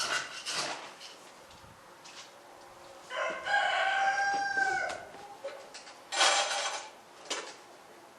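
A rooster crows once, a single held call of about a second and a half starting about three seconds in. Short rustling noises come at the start and twice more near the end.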